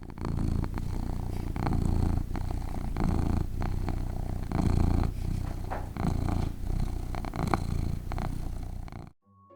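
Domestic cat purring close up, a steady low buzz that swells and eases with each breath, about once every second and a half. It cuts off suddenly near the end.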